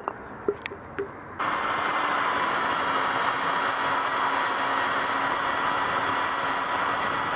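A few light clinks, then a steady machine running noise with a constant whine starts abruptly about a second and a half in.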